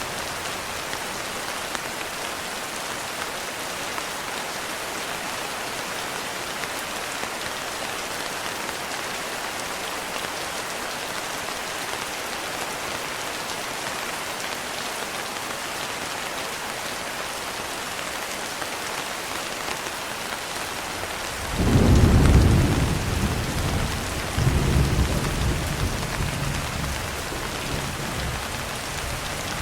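Steady heavy rain falling. About two-thirds of the way through, a roll of thunder breaks in suddenly, swells a second time and dies away over several seconds.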